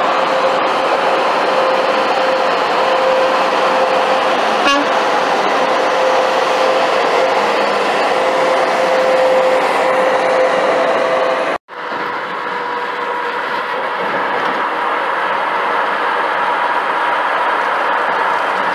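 Road and wind noise from inside a car at highway speed, a steady rush with an even droning hum under it. The sound drops out for an instant at a cut a little past the middle, then carries on the same.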